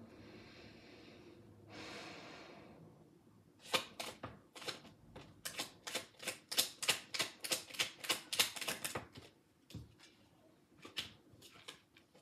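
A tarot deck shuffled by hand: a soft swish, then a quick run of card slaps and clicks, about four a second for some five seconds, followed by a few scattered taps as cards are laid down.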